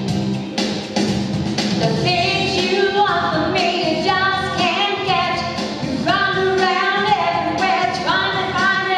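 A woman singing into a handheld microphone over instrumental backing music; the first couple of seconds are accompaniment alone, and her voice comes in about two seconds in.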